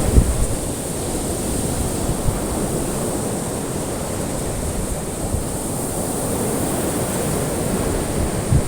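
Recorded ocean surf: a steady rush of waves with a low rumble underneath.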